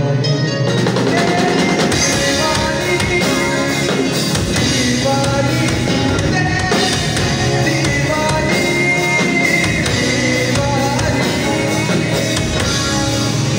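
Live rock band playing amplified: the drum kit and full band come in about a second in, with a man singing over the guitar, drums and keyboard.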